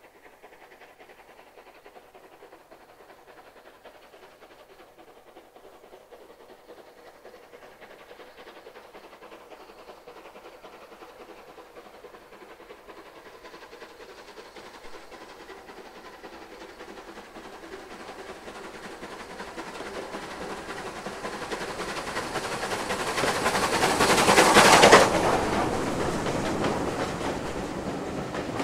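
Steam locomotive approaching with its train, growing steadily louder until it passes beneath at its loudest about 25 seconds in, then its coaches rolling past.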